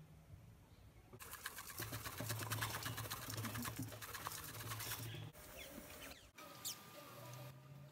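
A spice shaker being shaken over meat, grains rattling out in a quick, even patter for about four seconds from a second in, followed by a few faint handling sounds.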